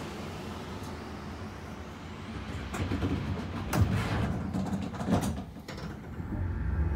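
Tram running along its line, heard from inside the car: a steady low rumble with a few sharp knocks and clacks, the loudest about four seconds in.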